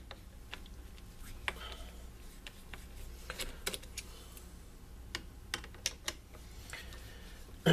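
Irregular light clicks and ticks of a screwdriver working Phillips screws out of the top plate of a Raymarine ST4000 wheel pilot drive unit.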